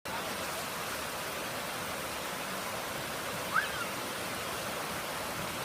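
Waterfall: a steady rush of falling water. About three and a half seconds in, a brief high-pitched sound rises and falls over the noise.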